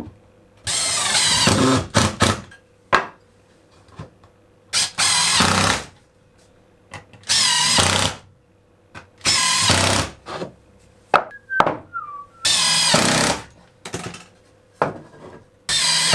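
Cordless drill-driver driving screws at an angle through wooden clamp holders into the wall, in six short runs of about a second each, the motor pitch climbing in each run, with small clicks between runs.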